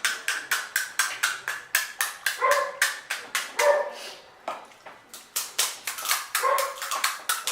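Close-miked chewing of crisp pani puri shells: rapid crunching clicks, several a second, with short squeaky pitched sounds now and then and a brief lull about halfway through.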